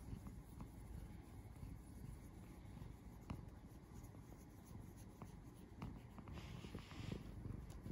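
Faint scratching and rubbing of fingers working through a cat's cheek and chin fur close to the microphone, with a low rumble underneath and a brief louder rustle near the end.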